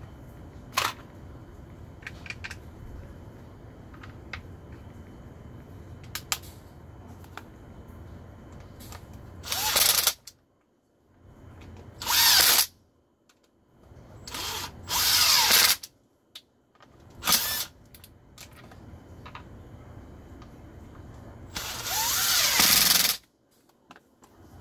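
Stihl two-stroke chainsaw, thought to be an MS 250, being pull-started: about six short pulls on the recoil starter crank the engine, the last one longest, and it does not catch and run.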